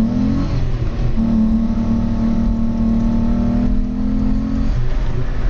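Volkswagen VR6 engine on its stock exhaust, revving. The revs climb quickly at the start, are held high and steady for about three and a half seconds, then drop near the end.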